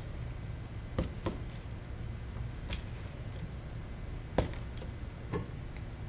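Wooden spatula smashing boiled potatoes flat on a metal baking sheet: about five separate knocks and taps, the loudest a little past the middle, over a steady low hum.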